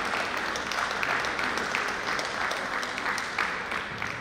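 Audience applauding a scored point in a three-cushion billiards match, a dense patter of claps that thins slightly toward the end.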